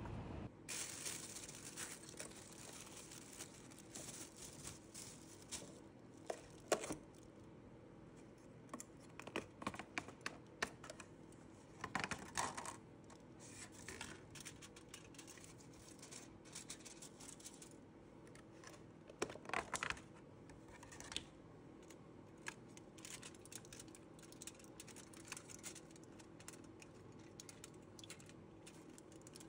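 Aluminium foil and plastic takeout containers being handled and unwrapped: irregular crinkling and rustling with scattered light clicks, in a few louder clusters.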